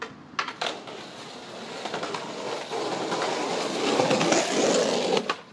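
Skateboard wheels rolling over stone paving, growing louder as the board comes close, with a few sharp clacks near the start; the rolling stops abruptly near the end.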